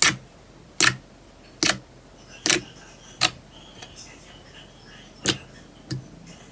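Slime being worked by hand, giving sharp pops or clicks about once a second, seven in all with a short pause in the middle.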